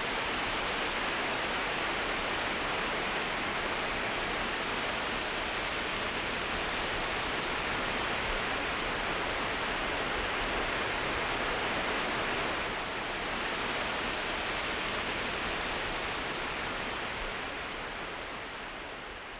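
Steady, even rushing noise with no tones or distinct events, beginning to fade near the end.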